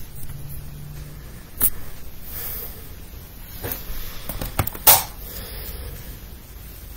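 Handling noises: four short knocks and rustles, the loudest about five seconds in, over a steady background hiss.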